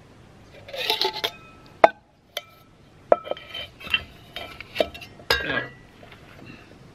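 Titanium camping pot and cup scraping and clinking against each other and being set down on a wooden table: a scrape about a second in, then several sharp clinks that ring briefly.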